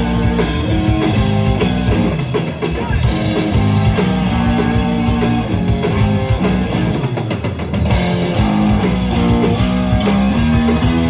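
Live rock band playing an instrumental passage: electric guitar riffing over bass guitar and a drum kit, with a steady beat.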